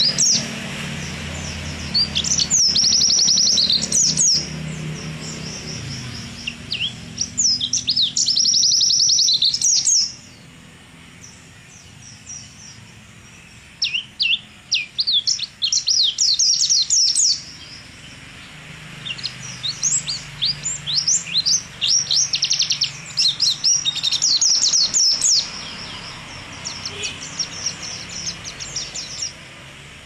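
Caged white-eye (pleci) singing: repeated bursts of fast, high trills and sweeping chirps, each phrase lasting a few seconds with short pauses between.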